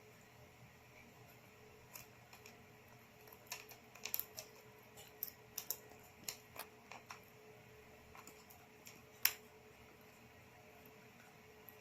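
Scattered small clicks and taps at irregular intervals, busiest from about three to seven seconds in, with one sharper click about nine seconds in, over a steady faint hum.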